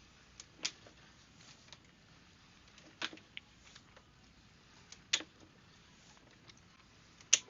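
Quiet background hiss with a few isolated sharp clicks, four of them spaced a couple of seconds apart.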